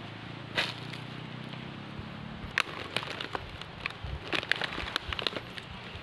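Footsteps on dry leaf litter and twigs, a scattered run of crackles and snaps that grows busier from about halfway through.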